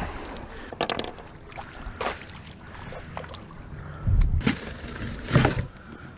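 Knocks and thumps of someone moving about and handling gear in a beached fishing boat. The heaviest is a deep thump about four seconds in, with another sharp knock a little past five seconds.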